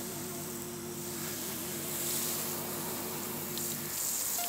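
Garden hose spray nozzle spraying water onto a polyurethane spoiler, a steady hiss, rinsing off the sanding residue. Background music with held notes plays underneath and stops about four seconds in.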